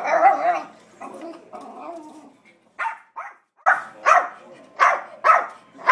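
Yorkshire terrier barking at a parrot: one loud bark right at the start, then a run of about six short, sharp barks, roughly two a second, through the second half.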